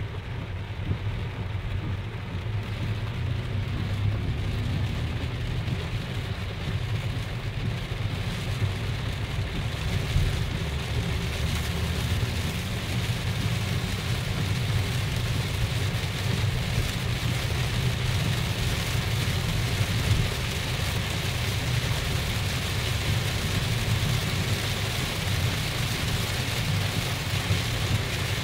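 Heavy rain falling on a car's roof and windscreen, heard from inside the moving car over a steady low road rumble. The rain grows louder and hissier about ten seconds in.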